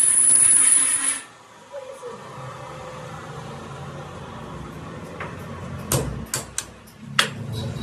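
A power tool working metal, with a high whine and hiss, cuts off about a second in. A low workshop hum follows, with a few sharp metallic knocks near the end.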